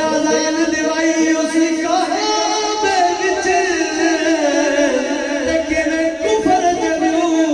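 Male voice singing a Punjabi devotional kalam through a microphone with no instruments, drawing out long held notes with wavering ornaments.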